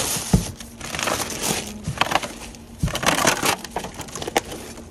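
Plastic produce bags and the black trash-bag liner crinkling and rustling in irregular bursts as a gloved hand rummages through bagged fruit and vegetables, with a couple of dull knocks.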